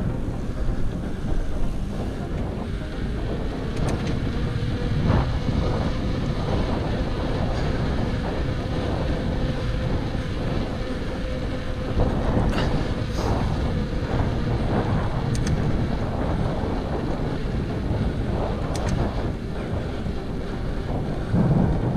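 Wind buffeting the microphone over the rumble of a full-suspension bicycle being ridden, with a faint steady hum for several seconds in the middle and a few short clicks or rattles.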